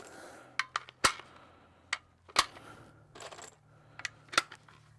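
Sharp metallic clicks and clinks of rifle gear being handled, coming irregularly, with the loudest about one, two and a half and four and a half seconds in.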